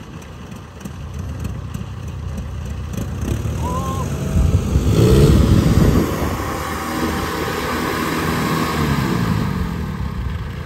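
Kubota DC70 combine harvester's diesel engine running under heavy load, rising in pitch and loudness about halfway through and then settling back as the machine labours through deep mud.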